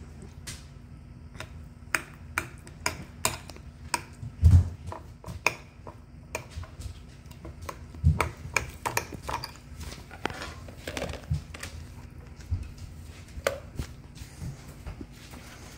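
A metal fork jabbing raw chicken breasts on a ceramic plate, its tines clicking against the plate in quick, irregular taps. Two heavier thuds come about four and a half and eight seconds in.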